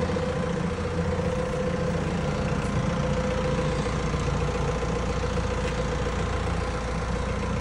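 An engine idling steadily, a low even rumble with a constant hum over it.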